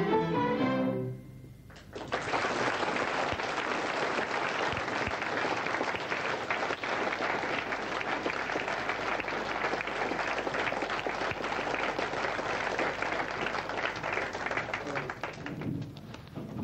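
A school orchestra's held final chord ends about a second in. The audience then breaks into steady applause, which thins out near the end.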